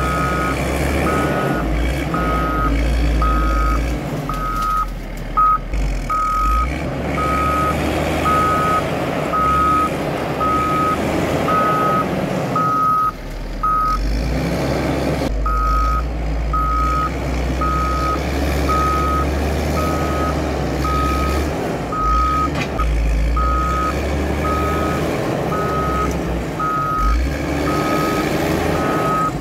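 Caterpillar 140M motor grader's diesel engine running under load while its backup alarm beeps steadily, about once a second, stopping for a second or so about halfway.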